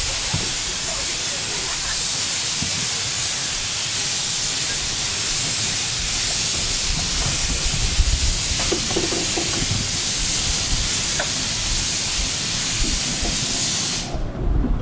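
Narrow-gauge steam locomotive letting off steam in a loud, steady hiss that cuts off suddenly near the end, over a low rumble from the train.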